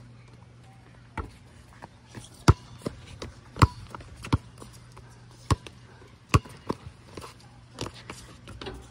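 Basketball bouncing on a concrete court: about half a dozen sharp slaps at uneven spacing, with fainter taps between. A faint steady low hum runs underneath.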